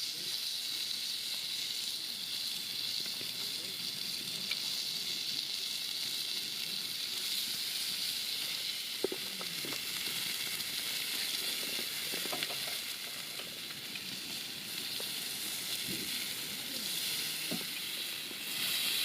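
Food sizzling steadily in a hot pan, a constant frying hiss that began as the food went in. Faint, low voices are heard in the middle.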